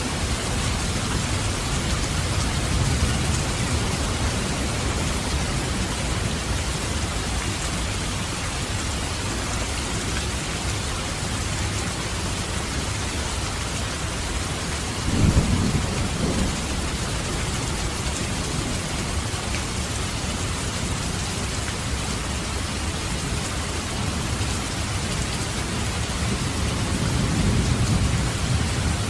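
Steady heavy rain hissing, with thunder: low rolling rumbles, a sharp, loud crack about halfway through, and another rumble swelling near the end.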